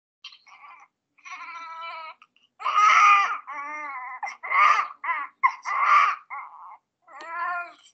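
Newborn baby crying in a run of short, high-pitched cries, about nine in all, loudest around three and six seconds in.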